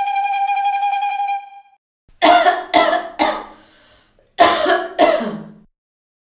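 A steady, held high-pitched tone that cuts off about a second and a half in, followed by a person coughing: three quick coughs, a short pause, then two more.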